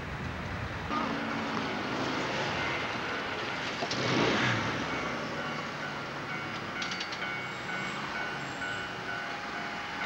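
Railway level-crossing warning alarm sounding in steady tones as the barrier arms lower. A passing road vehicle swells up about four seconds in.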